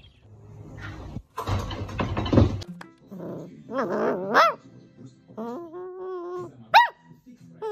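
A puppy howling and whining in drawn-out, wavering cries from about three seconds in, some held steady and one sliding quickly up high. Before that, about two and a half seconds of rushing noise.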